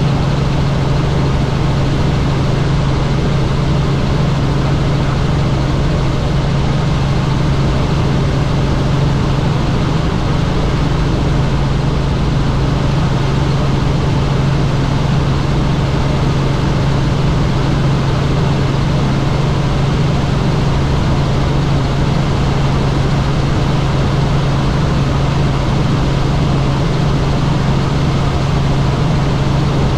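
Helicopter in flight: loud, steady engine and rotor noise with a strong low hum underneath.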